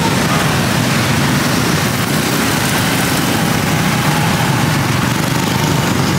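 Steady running of a vehicle engine close by, a constant low hum under a hiss, unchanging throughout.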